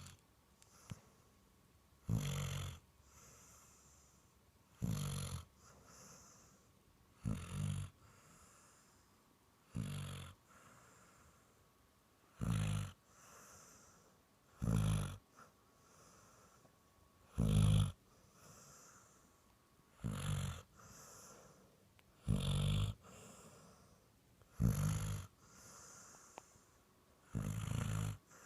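Dog snoring in deep sleep: a loud snore about every two and a half seconds, each followed by a softer breath.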